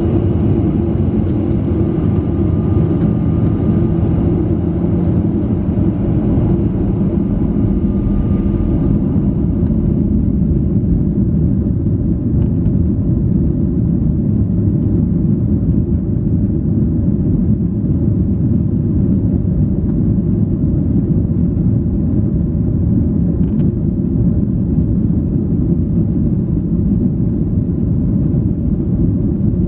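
Steady low rumble and engine hum inside a jet airliner's cabin as it taxis to the runway, with a faint higher whine that fades after about nine seconds.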